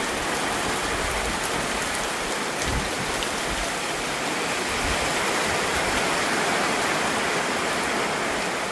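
Heavy rain pouring down in a steady downpour, an even dense hiss.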